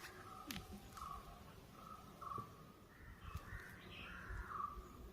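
Faint animal calls: a run of short, harsh calls about every half second, then a denser cluster near the end, with a few light clicks.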